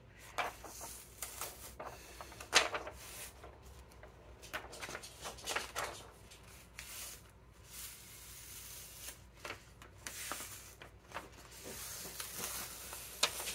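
Clear plastic carrier sheet being peeled off heat-transfer vinyl on a t-shirt, crinkling and crackling in short, irregular spurts, with one sharper snap about two and a half seconds in.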